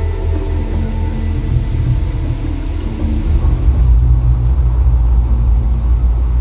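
Deep, steady rumble of the Mirage volcano show's eruption, with held droning tones over it at first; the rumble grows heavier about four seconds in as the flames rise higher from the crater.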